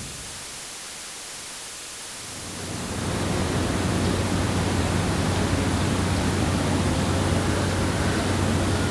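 A steady rushing noise with a low hum, fading in about two and a half seconds in: a transport or traffic ambience recording.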